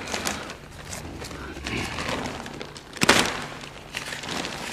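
A plastic silo cover being cut and pulled by hand, with irregular crinkling and scraping and one sharp, loud noise about three seconds in.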